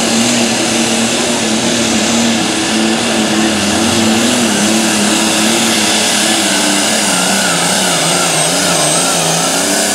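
Modified pulling tractor's engine running hard under load as it drags the weight-transfer sled down the track. Its note wavers throughout and sags lower in the last few seconds before climbing again.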